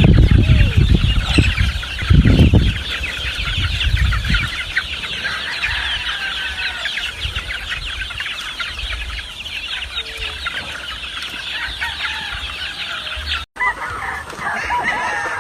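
A large flock of chickens clucking and chattering, a dense mass of overlapping short calls, with low rumbling through the first few seconds. After a brief break near the end, a few louder, separate chicken calls stand out.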